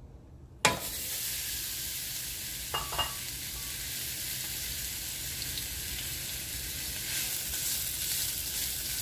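Sliced onions dropped into hot soybean oil in a pot. The oil bursts into a sudden sizzle a little under a second in, then fries steadily, with a brief knock or two about three seconds in as the onions are stirred.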